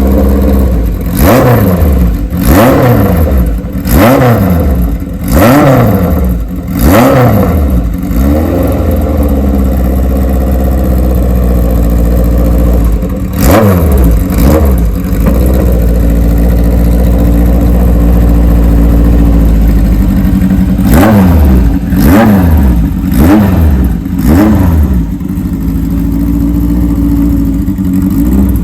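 1978 Kawasaki KZ1000 inline-four engine, fitted with a Kerker header, idling and being blipped on the throttle: a run of six quick revs, a steady idle, two more revs, another idle, then four more revs. Each rev rises sharply and drops straight back to idle.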